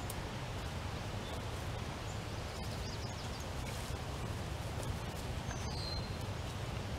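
Steady outdoor background noise with a low rumble, faint rustling and a few light ticks as grass and old wire are pulled away from the foot of a wooden fence post, and a short falling bird chirp about six seconds in.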